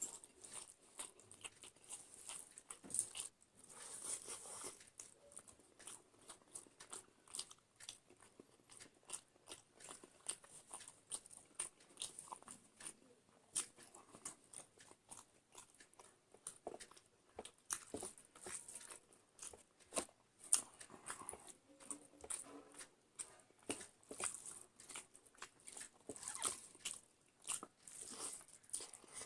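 A person eating close to the microphone: chewing and biting with many small, irregular mouth clicks, a few louder stretches now and then.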